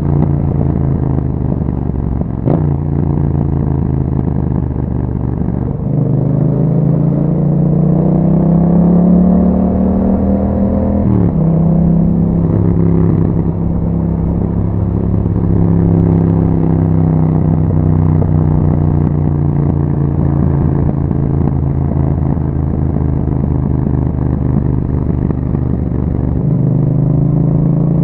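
2021 Yamaha MT-07's parallel-twin engine through an Akrapovic exhaust, under way on the road. The note climbs in pitch for several seconds as the bike accelerates, then drops sharply at a gear change about eleven seconds in. After that it holds a steady cruising note, with another shift near the end.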